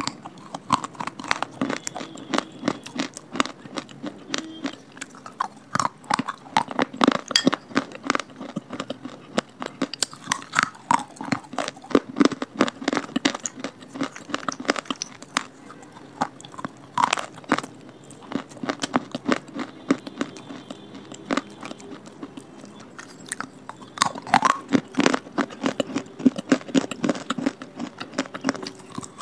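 A person chewing and biting crunchy clay pieces, with rapid, irregular crunches. The crunching thins out for a while in the middle and grows busier again near the end as a new piece is bitten.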